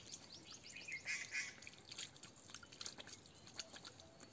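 Faint drips and trickle of spring water running off a leaf spout over rocks, with a brief call-like sound about a second in.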